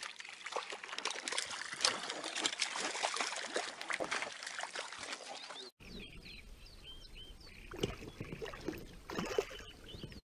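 Water splashing as a hooked fish is played on a bent spinning rod and then scooped into a landing net, with a few louder splashes near the end. Birds chirp in the background after a cut about halfway through.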